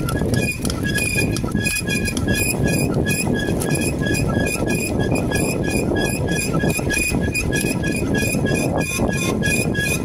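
A bicycle squeaking in a steady rhythm while being ridden, about three short high-pitched squeaks a second, over a continuous rumble of wind and road noise.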